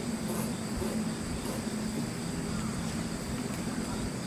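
Steady outdoor ambience: insects trilling continuously at a high pitch over a low, even hum.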